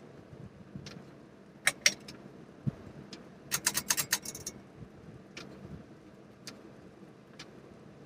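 Quorum Capri ceiling fan's pull-chain switch being worked by hand: two sharp clicks a little under two seconds in, then a quick rattling run of clicks and chain jangle around the middle, and a few lighter ticks afterwards, over the faint steady hum of the spinning fan.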